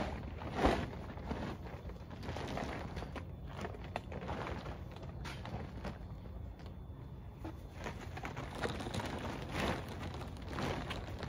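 Irregular knocks, clicks and rustling from greenhouse-kit frame parts and cover being handled during assembly, with one sharper knock about half a second in.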